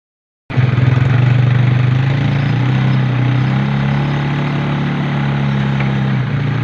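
A small engine running steadily at a low, even pitch, starting abruptly about half a second in.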